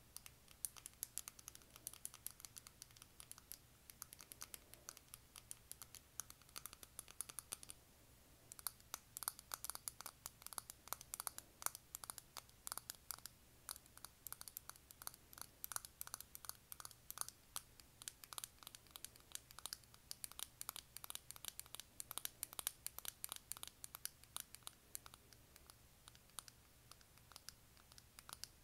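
Long fingernails tapping and scratching quickly on a silver hexagonal Fenty Beauty makeup compact: a dense run of small, crisp clicks that gets fuller about eight seconds in.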